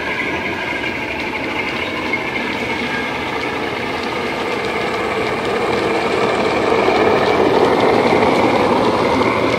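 Recorded Class 47 diesel engine sound running steadily, played by a model locomotive's DCC sound decoder through an EM2 speaker. The rumble of the model's wheels and coaches on the track grows louder about six seconds in as the train passes close.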